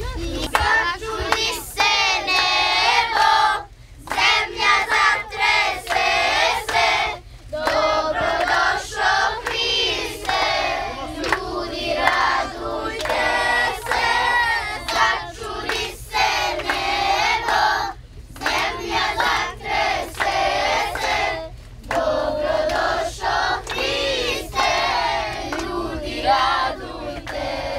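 A group of children singing a song together, phrase after phrase with short breaks between.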